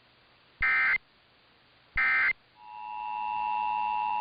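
Emergency Alert System test audio: two short bursts of SAME digital data tones, about a second and a half apart, then the EAS two-tone attention signal fading in and holding steady.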